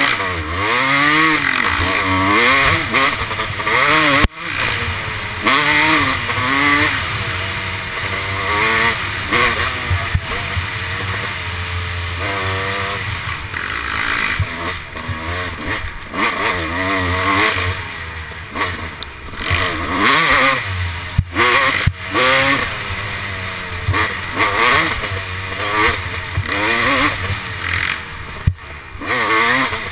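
Kawasaki dirt bike engine on the throttle through a twisty trail, its pitch climbing and falling again and again with shifts and throttle changes, with a few brief sudden cuts. A steady rush of wind on the helmet-mounted microphone runs underneath.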